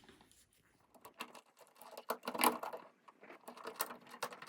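Irregular small metallic clicks and scrapes of needle-nose pliers working a wire loose from the screw terminal of an old light switch, starting about a second in.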